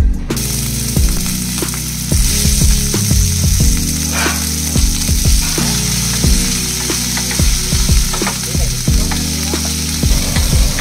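Sliced ivy gourd sizzling in hot oil in a stainless steel frying pan. A wooden spatula knocks and scrapes against the pan over and over as the vegetables are stirred. The sizzle starts just after the opening.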